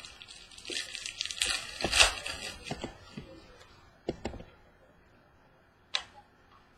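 Trading cards and their plastic wrapping being handled: crinkling and rustling with small clicks and taps through the first three seconds, then a couple of sharp clicks about four seconds in and one more near the end.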